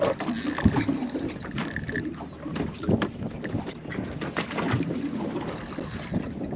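Small boat's hull slapping on the swell with wind buffeting the microphone, and the mechanical clatter and whir of a spinning reel being wound while a hooked tuna is fought. Irregular knocks throughout.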